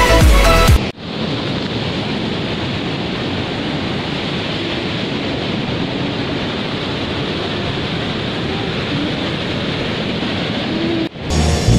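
Electronic music cuts off about a second in, leaving a steady rush of ocean surf breaking on the beach.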